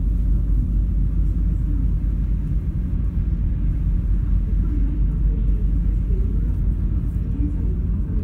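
Steady low drone of a ferry's engines and hull, heard on board while the ship is under way.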